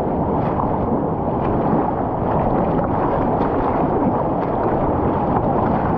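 Steady rushing roar of whitewater in a river rapid.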